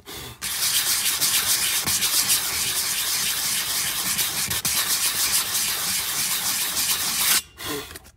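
Coarse P80 sandpaper rubbed by hand back and forth over the cloudy plastic top of a solar sidewalk light, scuffing off the white, crusty broken-down surface over the solar cell. The sanding stops about seven seconds in.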